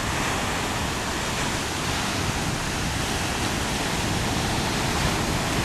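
Steady rushing of fast-flowing river water, an even hiss with a low rumble.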